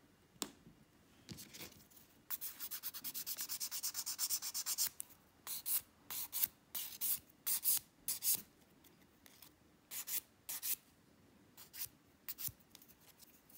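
Nail file rasping across a cured polygel nail to level out bumps: a fast run of short strokes, about ten a second, lasting a couple of seconds, then separate slower strokes at irregular intervals.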